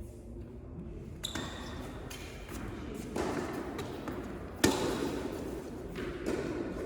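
Tennis ball being hit and bouncing during play on an indoor court: a few separate sharp knocks roughly a second and a half apart, the loudest a little under five seconds in.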